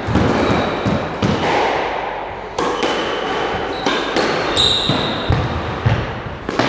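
Squash ball and racket knocks, a dozen or so irregular sharp hits, with a few short high sneaker squeaks on the wooden court floor.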